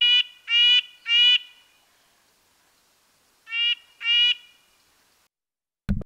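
Recorded red-breasted nuthatch giving short, nasal calls: three in quick succession, then a pause, then two more.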